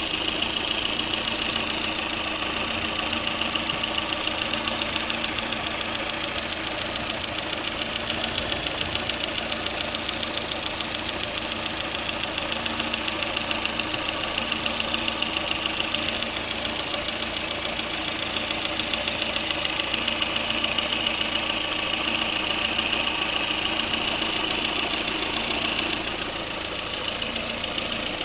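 Lada Kalina engine idling, with a rapid, even knocking running through it.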